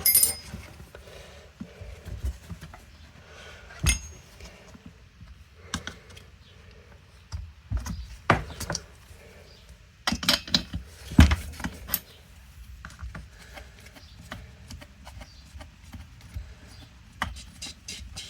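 Hand tools and chainsaw parts being handled on a workbench: scattered sharp metallic clinks and knocks with light rattling between them, the loudest knock about eleven seconds in.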